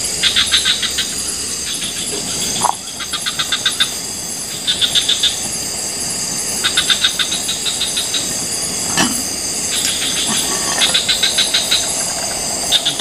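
Tropical rainforest animal chorus: a steady high-pitched buzz with a rapid pulsed trill that repeats every second or two. A couple of single knocks are heard, about three seconds in and about nine seconds in.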